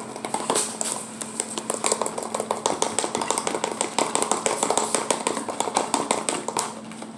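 Slime mixture of glue and powder being stirred in a clear plastic tub: quick, irregular clicking and scraping against the plastic, several times a second.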